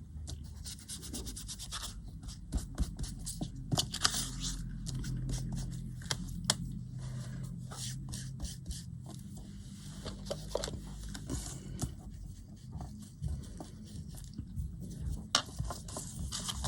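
Repeated rubbing and scratching on paper with many short taps, as the paper edges are inked.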